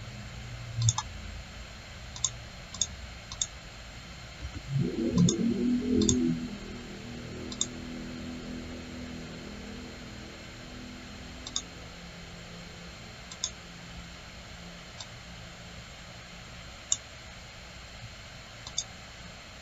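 Computer mouse clicking, single sharp clicks at irregular intervals, about a dozen in all, over a steady background hiss. About five seconds in, a louder low noise lasts for about two seconds.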